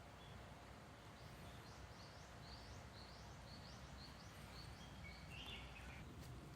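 A small bird calling faintly: a quick run of short, high, rising chirps, several a second, then a brief rougher call near the end, over a low background rumble.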